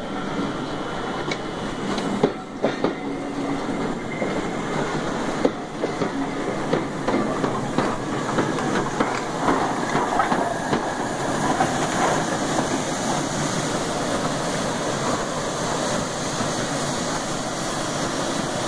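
LNER A3 Pacific steam locomotive 60103 Flying Scotsman and a coach rolling slowly past, wheels clicking and knocking over the rail joints at irregular intervals over a steady rumble.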